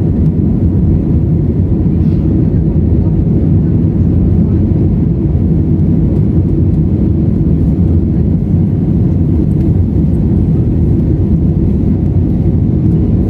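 Steady rumble of jet engines and airflow heard inside the cabin of an Airbus A320 in flight, recorded from a window seat over the wing.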